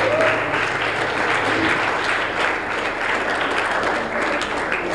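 Audience applauding at the end of a song: a dense, steady patter of many hands clapping, with a low leftover note from the music dying away about a second and a half in.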